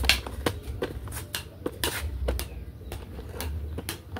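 Irregular sharp clicks and light knocks, a few a second, over a low rumble.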